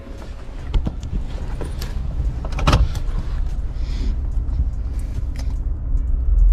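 Pickup truck engine and road rumble heard from inside the cab, with a few clicks and rattles and one sharper knock partway through. The rumble grows louder near the end.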